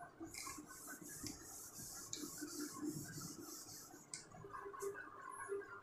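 Whiteboard duster rubbing back and forth over a whiteboard to erase the writing: a scratchy hiss of repeated wiping strokes that stops about four seconds in, followed by a short click.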